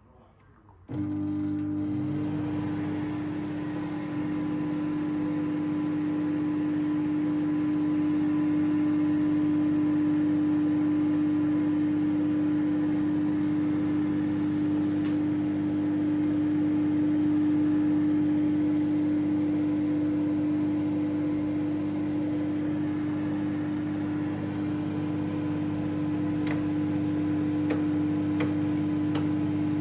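Microwave oven switched on and running: a steady electrical hum with fan noise that starts suddenly about a second in, with a few faint clicks near the end.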